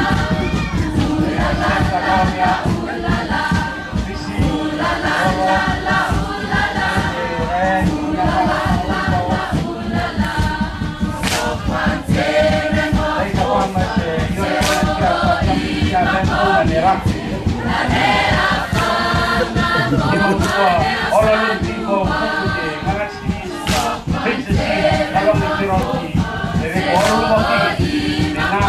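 Large mixed group singing a Rotuman hafa song together in chorus, continuous and loud. A few sharp hits stand out above the singing, one about eleven seconds in, one near fifteen seconds and one near twenty-four seconds.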